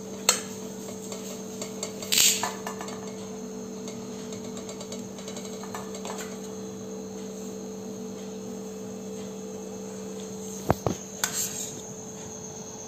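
Steel spoon clinking and scraping against steel plates and a steel bowl as cooked rice is served: a few clinks near the start and about two seconds in, and a cluster near the end, over a steady low hum.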